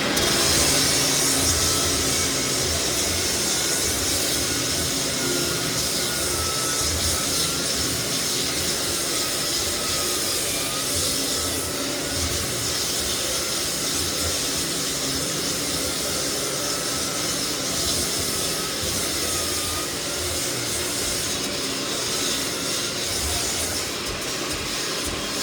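Lagler Flip floor sander running steadily on white oak flooring, a constant whir and hiss with a faint wavering whine.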